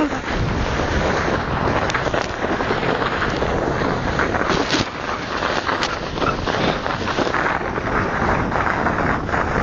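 Steady rushing noise of wind buffeting the microphone as a sledge slides fast over snow, with a few scattered knocks.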